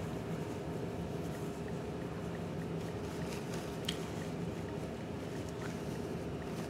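Steady low room hum and hiss, with a faint click about four seconds in.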